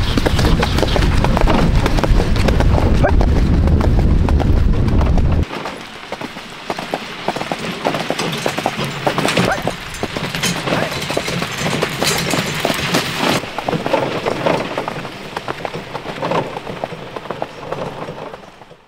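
Hooves of a carriage horse clip-clopping on a dirt track as it pulls a wheeled carriage. For the first five seconds or so a loud low rumble lies under the hoofbeats, then it cuts off and the hoofbeats are heard clearly, fading away near the end as the carriage moves off.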